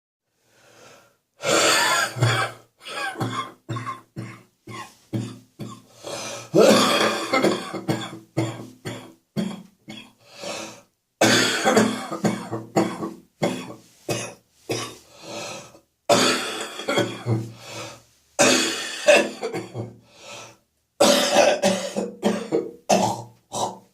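A person with a phlegmy, chesty cough coughing in about six fits. Each fit opens with one hard cough and trails off into a run of shorter coughs, several a second.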